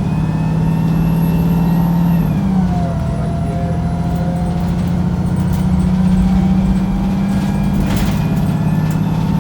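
Wright Pulsar 2 single-decker bus (VDL SB200 chassis) heard from on board, its diesel engine droning steadily under way, with the engine note shifting pitch about two and a half seconds in and again near the end. A brief sharp click or hiss comes about eight seconds in.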